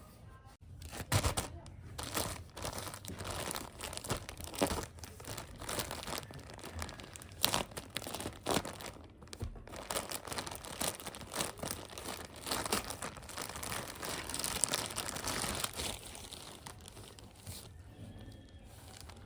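Toy packaging being crinkled and torn open by hand: a dense run of irregular crackles and snaps that thins out near the end.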